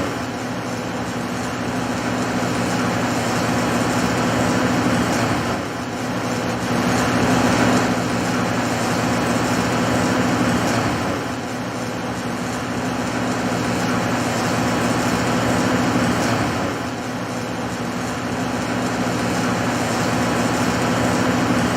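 Rotoweld 3.0 automated pipe spool welding machine running: a steady mechanical noise with a constant hum, swelling and easing every five or six seconds.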